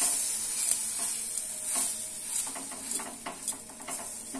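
Wooden spatula stirring and scraping semolina and vegetables around a hot non-stick kadai in irregular strokes, over a steady frying sizzle.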